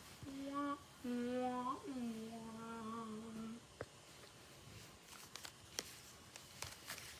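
A person humming a few held notes, the last one long and steady. Then faint clicks of the cards being handled near the end.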